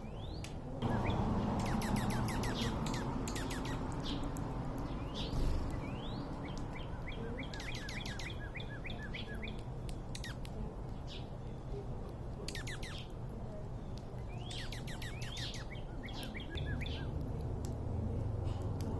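Wild songbirds chirping: many short, high chirps in quick runs, over a steady low rumble that swells about a second in and again near the end.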